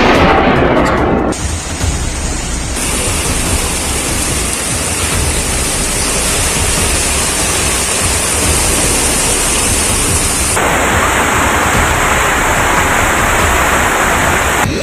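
Heavy rain and rushing floodwater: a loud, steady hiss of pouring and churning water that changes abruptly a few times.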